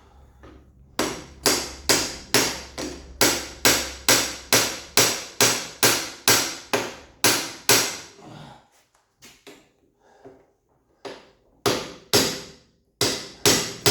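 Hammer blows on the metal frame of a Jeep soft-top door, about two sharp strikes a second for several seconds. A few fainter taps follow, then a second run of about five strikes near the end.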